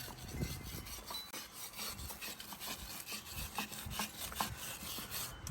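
A brush scrubbing a skid steer's steel wheel wet with wheel cleaner: a run of uneven bristle strokes rasping over the metal.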